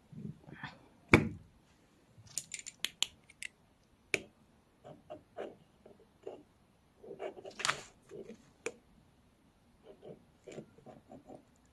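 Handling noises from a rough nephrite jade stone on a wooden stand, with a metal flashlight held against it: a sharp knock about a second in, a quick run of crisp clicks, then a scatter of short soft taps and scuffs.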